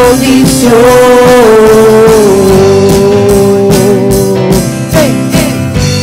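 Worship music: a woman's voice holds one long sung note with vibrato, stepping down in pitch about two seconds in and ending shortly before the close. A keyboard and band play under it.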